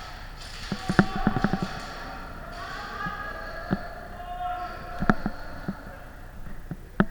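Irregular sharp knocks and cracks, a quick cluster of several about a second in and single ones scattered later, over faint voices.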